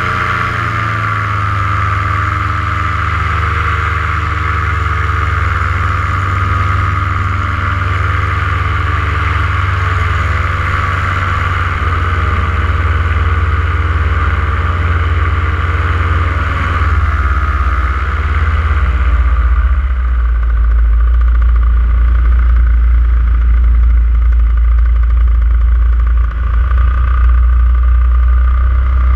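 Powered paraglider's paramotor engine and propeller running steadily in flight. About two-thirds of the way in, the higher part of the sound fades and a deeper drone takes over.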